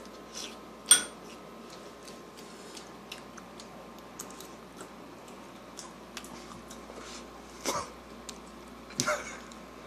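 Quiet room with scattered small clicks and knocks: a sharp clink about a second in, and two short noisy bursts near the end.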